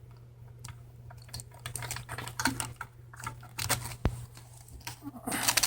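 Irregular light clicks and rustling from handling the seatbelt buckle's wiring as it is fed through a hole in the seat, with a louder rustle near the end, over a steady low hum.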